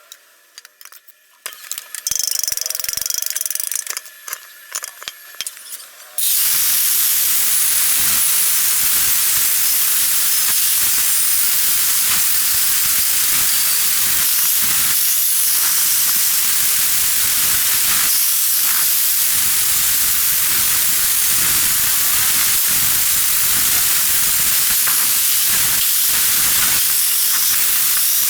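Oxy-acetylene torch flame hissing, heating and gas-welding steel sheet onto a muffler. A few short bursts of hiss come near the start, then the torch runs as a loud, steady hiss from about six seconds in.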